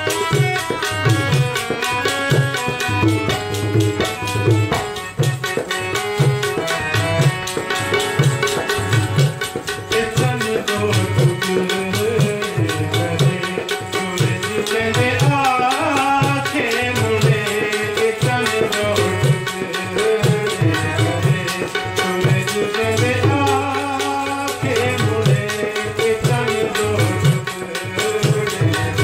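Tabla and harmonium playing together, the tabla keeping a steady beat of low strokes about twice a second under the harmonium's sustained melody.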